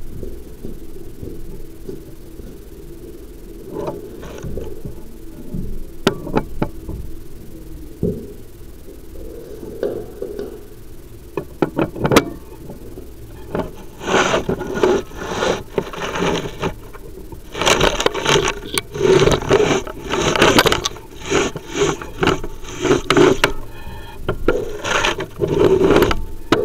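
Chimney inspection camera scraping and rubbing against the inside of the flue as it is moved along. Scattered clicks come in the first half, then repeated harsh scrapes from about halfway on.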